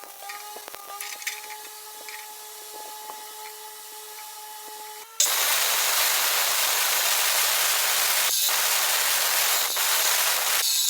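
A power tool working on steel. A steady machine hum with light clicks comes first, then about five seconds in a loud, harsh hissing noise cuts in suddenly and runs on with a few brief breaks.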